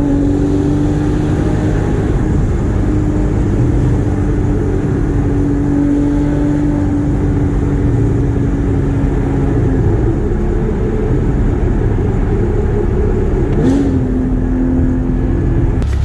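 Porsche Cayman GT4's flat-six engine running at a steady cruise over road and tyre rumble. Its note holds level for most of the stretch, then climbs again near the end.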